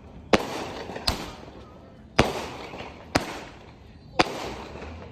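Fireworks going off in a series of sharp bangs, five of them about a second apart, each trailing off in echo.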